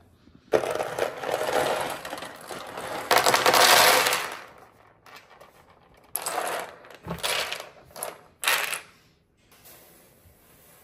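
Dry food pouring and rattling into a storage bin: one long pour of about four seconds, then three short pours.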